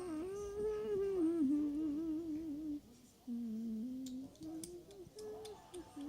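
A child humming wordlessly in a wobbling, warbling voice: one long wavering note for nearly three seconds, then after a short break a few shorter hummed notes, with faint clicks near the end.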